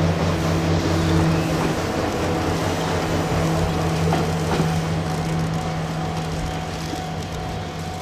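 Diesel train engine running steadily with a low, even hum, slowly getting quieter.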